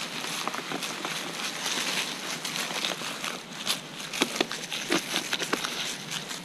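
Irregular crunching and sharp clicks of movement along a dirt forest trail, over a steady hiss, the clicks thickest about four to five seconds in.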